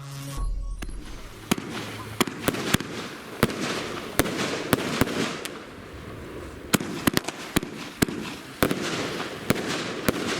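Firework cakes going off: a string of sharp bangs at uneven intervals over continuous crackling.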